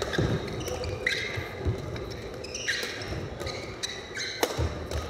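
Badminton doubles rally: rackets hitting the shuttlecock with sharp cracks, the loudest about four and a half seconds in, and players' shoes squeaking on the court floor.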